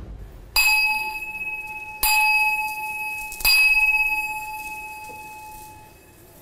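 Metal altar prayer bell struck three times about a second and a half apart, each strike ringing out and slowly fading, the last dying away over a few seconds: the bell used when making an offering at an ancestral altar.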